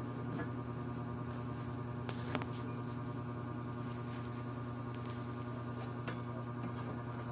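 A steady electrical hum with a few faint light clicks.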